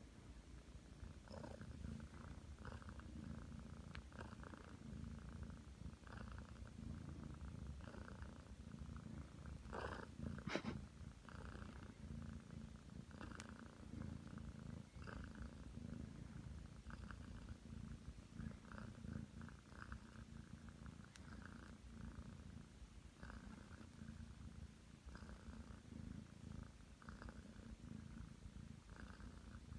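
Nine-month-old Ragdoll cat purring softly and steadily, the purr swelling and fading with each breath. A brief, louder noise comes about ten seconds in.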